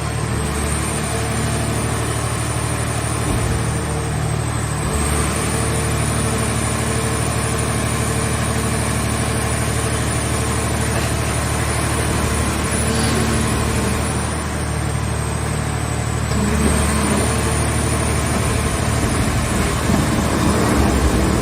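Scrap car baler's engine and hydraulic power unit running steadily, with a high thin whine that dips slightly in pitch twice.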